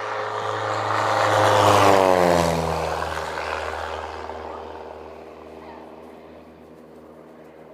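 Low-flying airplane passing overhead: its engine drone swells to loudest about two seconds in, drops in pitch as it goes past, then fades away.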